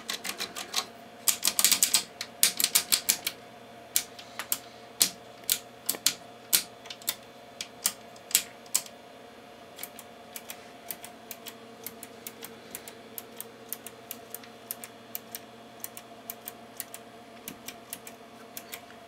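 Front-panel switches of a Tenma 72-320 oscilloscope clicking over and over as they are worked through their positions to clean dirty contacts with contact cleaner. Quick runs of clicks come in the first few seconds, then slower single clicks that grow fainter.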